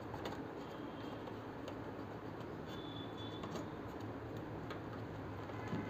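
Quiet steady background noise with a low hum and a few faint, scattered light clicks.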